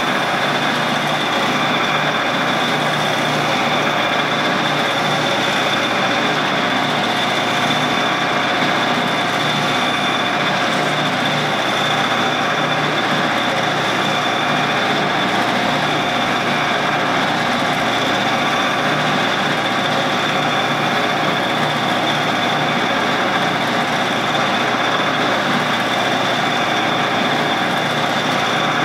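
Shopsmith running as a lathe, its motor and drive giving a steady, even running sound with a high whine as it spins a stainless steel rod being polished.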